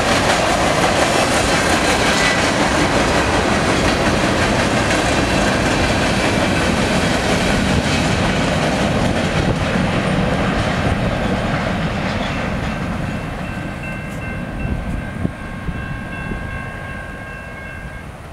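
Freight train of tank cars and covered hopper cars rolling past on steel wheels, with wind on the microphone. From about twelve seconds in the train noise fades as the last cars pull away, and a thin, steady high-pitched tone sounds over it near the end.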